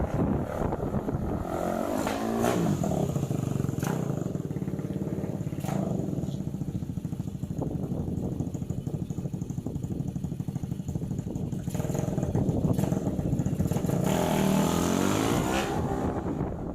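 Suzuki Raider R150 underbone motorcycle's single-cylinder four-stroke engine running under way on a test ride, fitted with an aftermarket exhaust. Its note climbs about two seconds in, holds fairly steady, then revs up again near the end.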